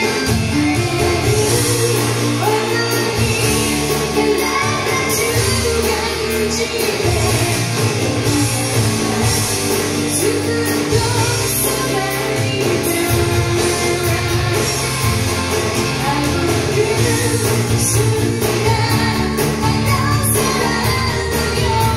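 Live J-pop rock band with a female lead vocalist singing the chorus over guitars, bass and drums. It is played back through JBL 4344 loudspeakers and recorded by a microphone in the room.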